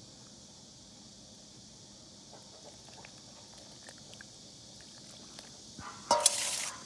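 Faint steady chirring of insects, with a few light clinks of a steel ladle in a pot of soup, then a loud animal call lasting well under a second near the end.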